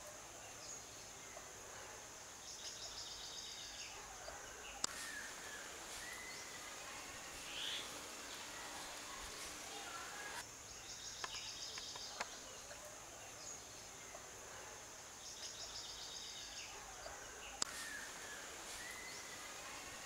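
Faint rural ambience: insects buzzing steadily with pulsing trills, and birds chirping now and then. Two sharp clicks stand out, about five seconds in and near the end.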